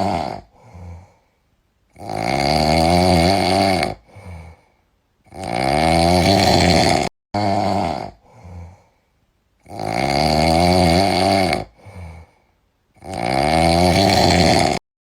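Sleeping cat snoring in a regular rhythm: four loud, buzzing snores of under two seconds each, roughly every three and a half to four seconds, each followed by a short, softer snore.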